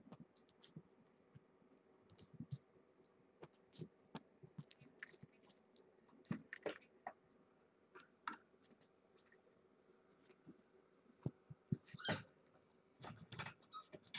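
Kittens playing on a sisal-rope cat tree: scattered soft taps, thumps and claw scrabbles at an irregular pace, busier and louder in the last couple of seconds, over a faint steady hum.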